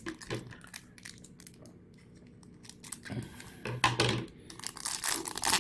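Trading card pack wrapper being torn open and crinkled by hand, in short irregular rustles that start about three seconds in after a quiet stretch.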